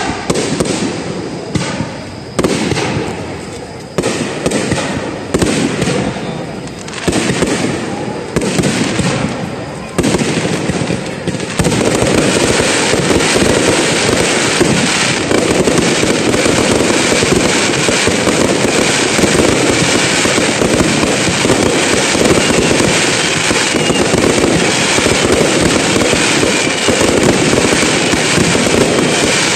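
Aerial fireworks bursting: separate booms about once a second, each fading away, then from about eleven seconds in a dense, unbroken barrage of many shells bursting and crackling together.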